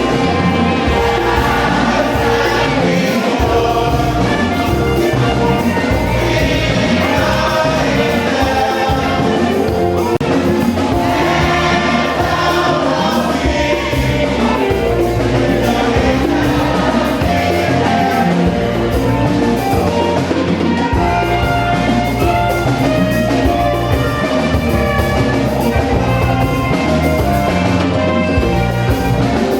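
Gospel music with a choir of voices singing together over a strong bass and a steady beat.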